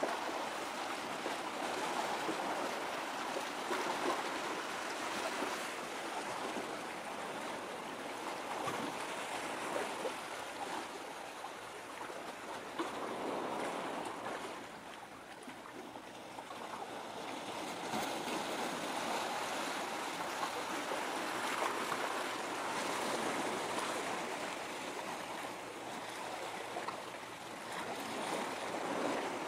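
Small sea waves washing and lapping at the water's edge, a steady rushing that swells and eases every few seconds.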